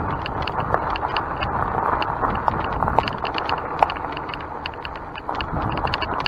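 Mountain bike riding along a dirt trail: a steady rush of tyre and riding noise, with many small irregular clicks and rattles from the bike.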